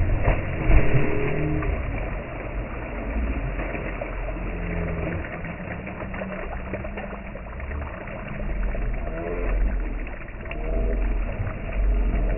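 Lake water splashing as people standing in it throw water up with their arms, over a low rumble that swells and fades, with a few voices now and then.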